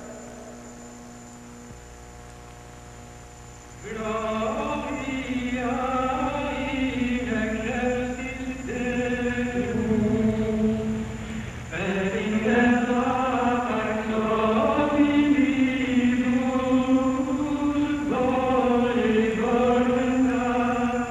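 A low steady hum, then a choir starts singing about four seconds in, pausing briefly near the middle before singing on.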